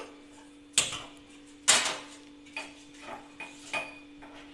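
Small steel tadka pan clanking against a gas stove's burner grate: two loud metal clanks about a second apart, followed by a few lighter clicks and knocks.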